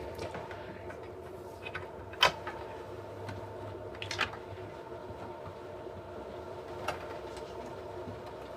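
Faint steady electrical hum made of several even tones, with a few light clicks and taps.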